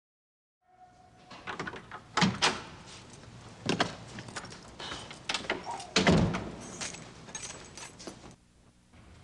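Door being handled: a run of clicks, rattles and knocks, with louder thumps about two seconds in and again about six seconds in, then it stops shortly before the end.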